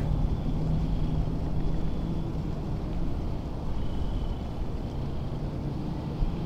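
Steady low rumble of distant engines, a droning hum with no change in pitch.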